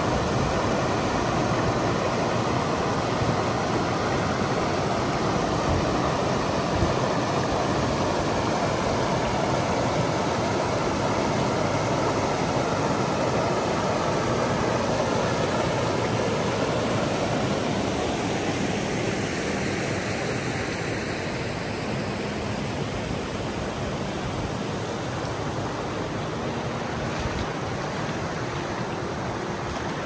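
Forest stream babbling, a steady rush of flowing water that eases slightly about two-thirds of the way in.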